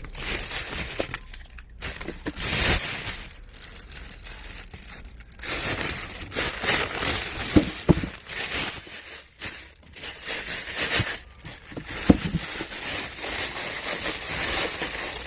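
Packaging of a cheese and yogurt delivery crinkling and rustling in irregular stretches as it is handled and opened, with a couple of sharp knocks.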